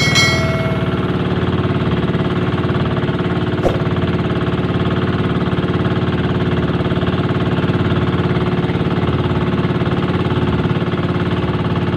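Small boat engine running steadily. A brief metallic ring right at the start fades over about a second, and there is a single knock a little under four seconds in.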